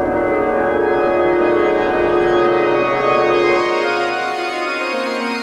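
Music of sustained organ-like chords, the notes held for seconds and shifting slowly, with a lower note changing near the end.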